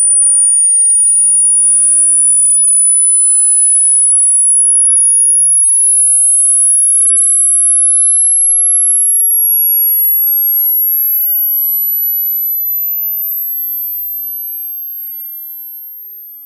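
A single pure sine test tone from a hearing test, sweeping slowly upward in small steps through the very high range, in the high pitches that the test uses to show how much hearing has aged. It grows fainter over the last few seconds.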